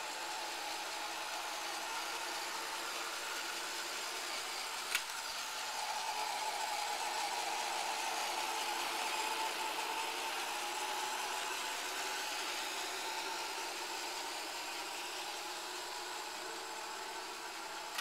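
Old-model iRobot Roomba robot vacuum running on carpet: a steady whirring with a faint hum, a little louder from about six seconds in. One brief click about five seconds in.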